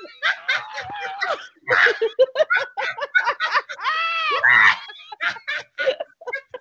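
Two women laughing hard while roaring like lions with their tongues out: quick bursts of laughter broken by loud roaring cries, the longest an arched drawn-out cry about four seconds in.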